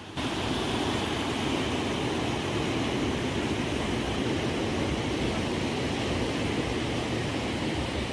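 Surf and churning water where a river meets the sea, a steady even rush of noise with no single wave standing out.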